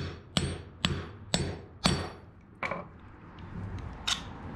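Hammer blows on a deep-well socket driving a new, oversized wheel stud into a drilled-out hub: five sharp metallic strikes about half a second apart with a brief ring, then two more, farther apart.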